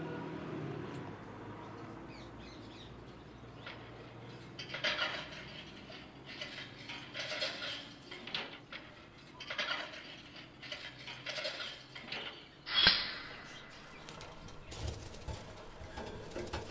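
An African grey parrot and its wire cage: a run of short, irregular scratchy rustles and flutters, with one sharp knock about thirteen seconds in.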